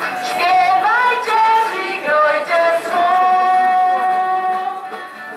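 Female and children's voices singing a Christmas carol, with one long held note in the second half.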